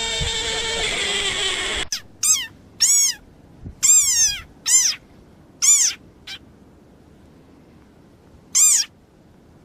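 A dense, wavering sound that cuts off abruptly about two seconds in. It is followed by a string of short, high-pitched animal calls, meow-like, each rising and then falling in pitch, about seven of them with quiet gaps between.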